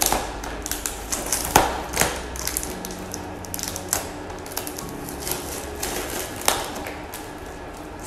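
A stiff sheet of mosaic-pattern plastic window film crackling and clicking as it is handled, with irregular sharp ticks and a few louder snaps about one and a half, two and six and a half seconds in.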